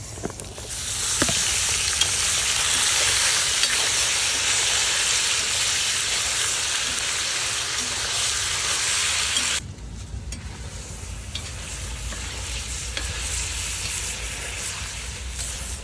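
Chunks of pork frying in hot rendered pork fat in a cast-iron cauldron: a loud, steady sizzle that drops abruptly to a quieter sizzle about ten seconds in. Scattered clicks come from a metal slotted spoon stirring the meat.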